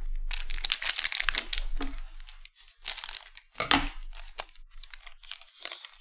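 Wrapper of a 2020-21 Select basketball hobby card pack being crinkled and torn open by hand: a dense crackling tear over the first two seconds, then two sharper rips and scattered crinkles as the cards are pulled out.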